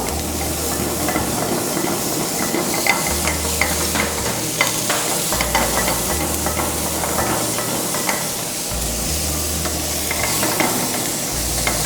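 Chopped vegetables sizzling in hot oil in a pan while being stirred, with scattered light clicks of the utensil against the pan.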